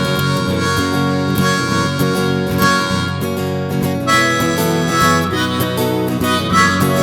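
Hohner diatonic harmonica playing a melody over a strummed guitar, an instrumental break in a lo-fi folk song. The chord changes about four seconds in.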